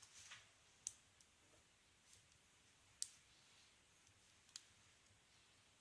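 Faint, sparse clicks of a hook pick and tension wrench working the pin stack of a brass six-pin Best padlock, three sharper ticks standing out among a few softer ones.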